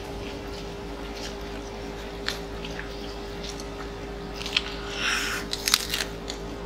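Close-miked eating: chewing and biting with small sharp clicks from mouth and chopsticks, and a brief noisy burst about five seconds in, over a steady faint hum.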